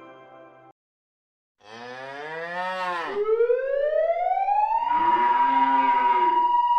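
A cow moos once, a long call that rises and falls. Then a siren wails in, rising for about two seconds and holding its pitch, and a second moo sounds over it near the end.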